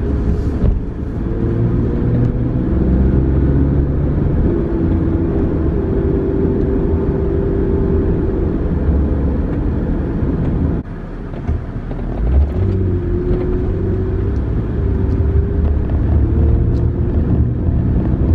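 A car driving, with a steady low engine and road rumble and a hum that wavers in pitch. It dips briefly about eleven seconds in.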